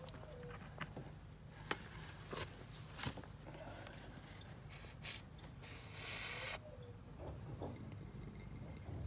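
A few light plastic clicks and taps, then two short hisses about five seconds in and a louder hiss lasting about a second: a squeeze bottle of outboard gear oil being fitted into the lower unit's fill hole and squeezed, hissing at the nozzle.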